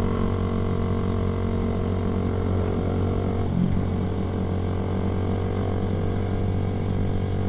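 Motorcycle engine running steadily while riding, with a brief change in its note about three and a half seconds in.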